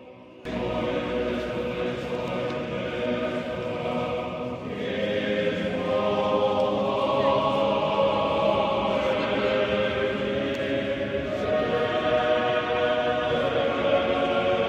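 Orthodox church choir singing in several voices, holding long chords. It comes in suddenly about half a second in and gets louder about six seconds in.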